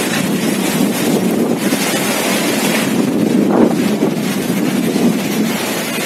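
Storm-force wind gusting and buffeting the microphone, a loud, steady rushing noise without a break.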